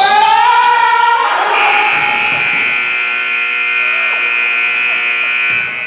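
Gym scoreboard buzzer sounding one long, steady blast of about four seconds, starting a second and a half in and cutting off near the end: the game clock has run out, ending the period.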